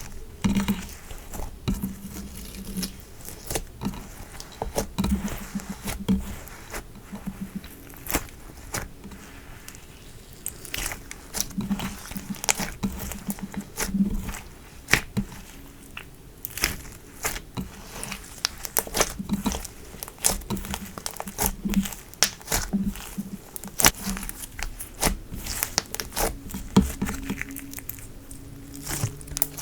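Slime being kneaded and stretched by hand, with dense, irregular crackling and sharp clicking pops.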